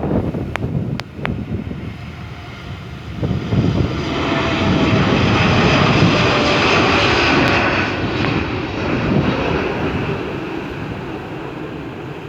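Jet airliner's engines passing close by: the roar builds about three to four seconds in, is loudest in the middle and slowly fades, with gusty wind buffeting the microphone throughout.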